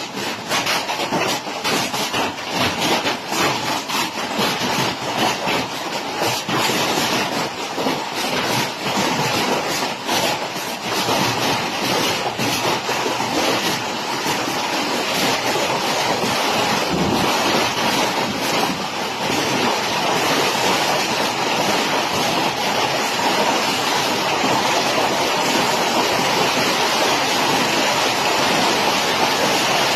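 Large hailstones pelting down in a heavy summer storm: a dense clatter of sharp impacts that gradually merges, about halfway through, into a steady, even rush of heavy rain and hail.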